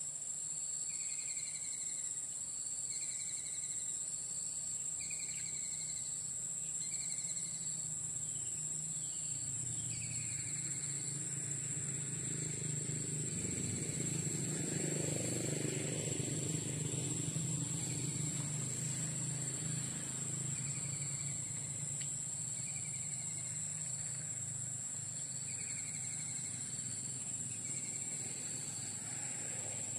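Steady high-pitched insect drone with a bird repeating a short falling call about every two seconds. A broad rushing noise swells and fades through the middle.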